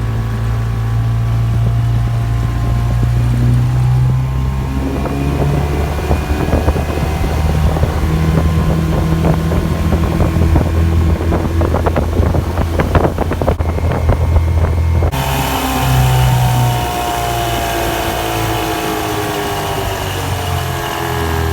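9.9 hp Mercury outboard motor running steadily at speed, pushing an aluminum boat across the water, with wind on the microphone. A stretch of rapid clatter comes in the middle, and in the last few seconds the engine drops a little in pitch and level.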